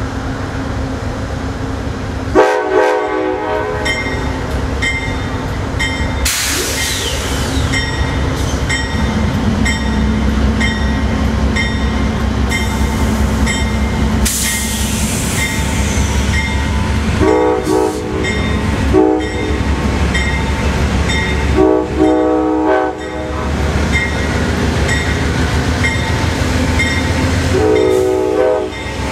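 Amtrak P42DC diesel locomotive approaching a grade crossing, sounding its horn in several blasts: a brief one about two seconds in, then a long, a short and a long blast, and a last long blast near the end as it reaches the crossing. Under it the diesel engine runs steadily, and the crossing bell rings about once every half second.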